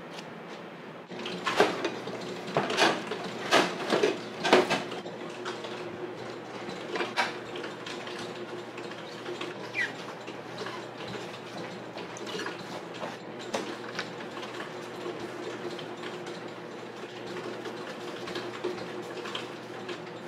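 Dough being rolled out with a rolling pin and shaped by hand on a plastic board: a quick run of sharp knocks and clatters in the first few seconds, then softer scattered taps and rubbing, over a steady low hum.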